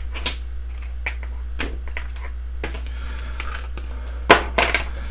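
Hard plastic parts and a clear plastic parts box clicking and tapping as they are handled on a wooden desk: a handful of separate clicks, the loudest about four seconds in. A steady low hum runs underneath.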